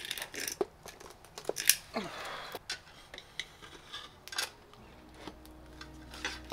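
Irregular clicks, knocks and a brief scrape as a heavy aluminium-and-plexiglass battery box is handled and fitted onto its mounting bars on a mountain bike frame. Low background music comes in about five seconds in.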